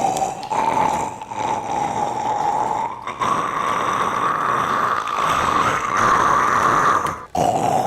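Loud, rasping snoring in long drawn-out snores, with a short break about three seconds in and another near the end; the middle snore is a little higher in pitch.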